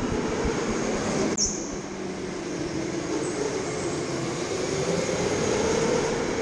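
Go-kart running at speed, heard from the driver's seat: a steady motor and tyre noise whose pitch slowly rises and falls, with a single sharp knock about a second and a half in.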